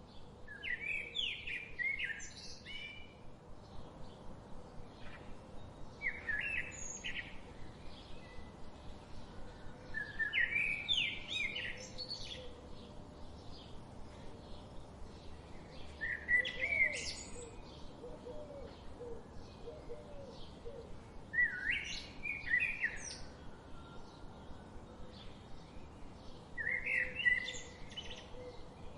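Birds singing: one bird repeats a short, varied, high chirping phrase about every five seconds, over a steady, rapid series of softer chirps.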